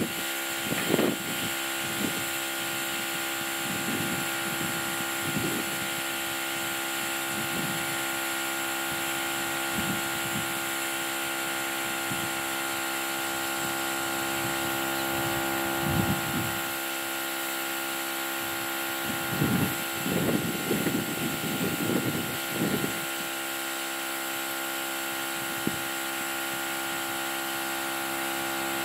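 Viking portable tire inflator's small electric compressor running steadily as it airs up a Jeep tire. A few brief low rumbles break in partway through and again later on.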